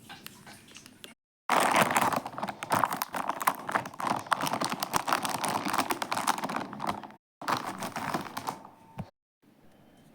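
Packaging crinkling and rustling as it is handled and opened, a dense run of quick crackles, broken by abrupt cuts to silence.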